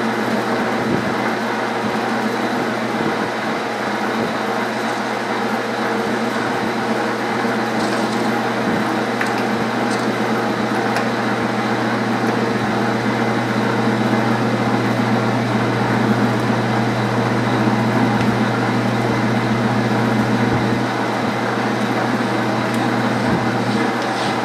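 Metal lathe running steadily at speed with a steady low hum while a parting tool cuts off a bronze eccentric from bar stock.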